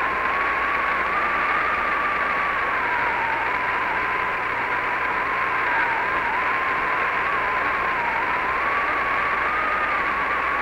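Steady radio static on the Apollo 11 air-to-ground voice channel: an even hiss with a thin whistle near 1 kHz that wavers slightly in pitch, with no voices on the loop.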